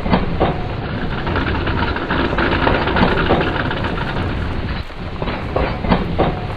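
Heavy rain falling steadily over a low rumble, with a few sharp knocks: a couple near the start and two close together near the end.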